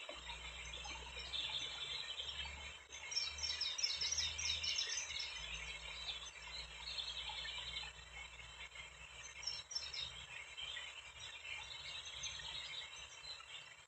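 Small birds chirping and singing in a continuous background chorus, with a flurry of rapid high chirps about three to five seconds in.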